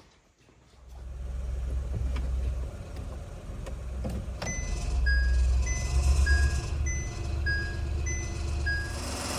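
Honda Life (JC1) 660 cc three-cylinder engine coming to life about a second in and running at idle with a low rumble. About four and a half seconds in a click sounds as the car is shifted into reverse, and the reverse warning chime starts: two beep tones alternating high-low, a pair about every second.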